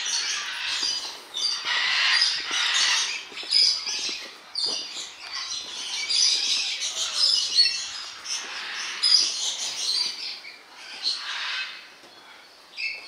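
A flock of tame aviary birds chattering and squawking, many short overlapping calls at once without a break, dropping off a little near the end.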